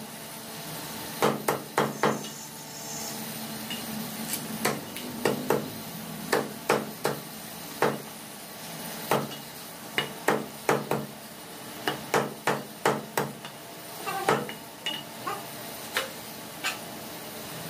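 Meat cleaver chopping chicken on a round wooden chopping block: repeated sharp chops in quick runs of two to five, thinning to a few single strikes near the end.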